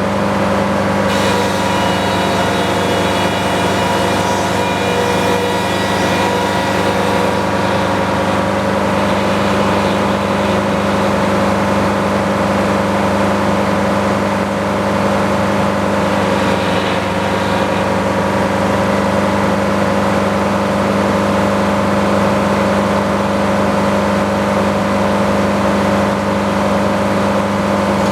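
Sawmill engine running steadily at a constant speed, with a higher whine from about one to seven seconds in and again briefly near the middle.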